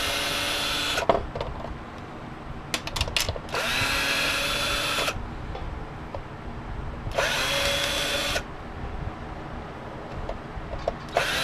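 Cordless drill/driver backing screws out of a space heater's sheet-metal casing in short bursts of motor whine, each rising in pitch as the trigger is pulled. It runs four times, with clicks of screws and parts being handled in between.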